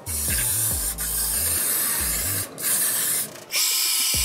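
Aerosol spray paint can fitted with a soft cap hissing in three bursts as a black base coat goes on. Near the end a hair dryer switches on and blows steadily to dry the paint.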